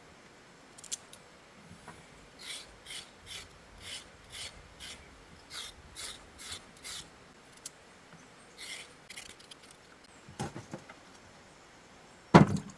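A series of short rasping strokes, about two a second, pausing briefly and resuming, followed by a dull thump and then a louder one near the end.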